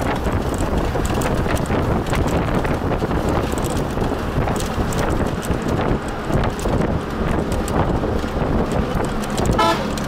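Travel noise from a moving road vehicle: a steady rumble with frequent small knocks and rattles. A short horn toot sounds near the end.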